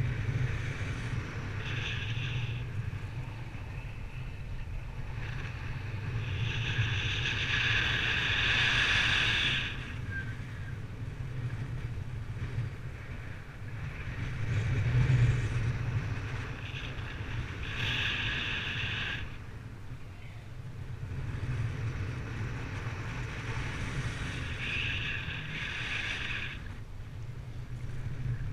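Airflow rushing over the microphone in flight under a paraglider wing: a steady low rumble, with brighter hissing that swells and fades four times.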